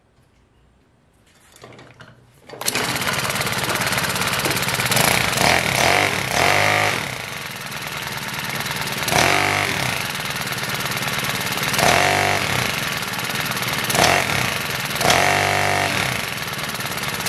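Honda GX31 small four-stroke engine on an FG100 mini tiller catches about two and a half seconds in and then runs, revved up in several surges. The tines do not turn: the owner suspects the tiller's drive is locked up.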